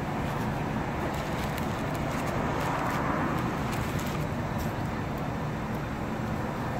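Steady road traffic noise, swelling a little as a vehicle passes about three seconds in, with a few faint crinkles of a paper food wrapper.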